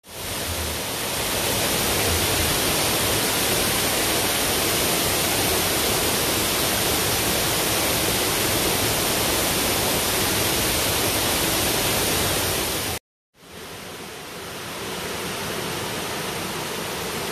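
Waterfall with a heavy flow: a steady rush of falling water. It cuts out for a moment about thirteen seconds in and comes back a little quieter.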